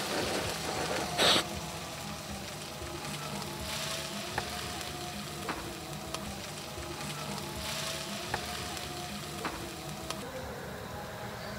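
Food still sizzling in a hot frying pan just lifted off a portable gas stove, with one sharp knock about a second in. Then a wooden spatula scrapes and taps against the metal pan with short, scattered clicks as the stir-fried minced meat is pushed out into a bowl.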